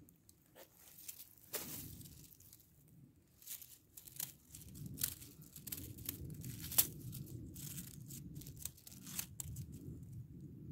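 Dry pine needles and dead leaves crackling and rustling as they are disturbed, with irregular sharp clicks, the loudest about seven seconds in, over a low handling rumble on the phone's microphone.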